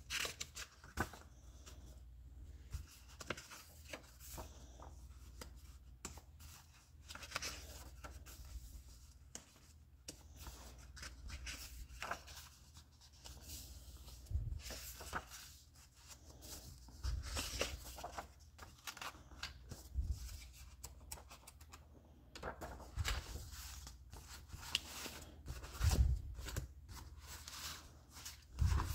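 Paper pages of a handmade journal being handled and turned, rustling and crinkling irregularly. A few soft thumps come as pages are flapped or laid down.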